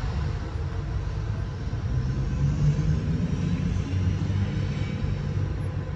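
Low, steady rumble of road traffic, swelling a little as a car passes about midway.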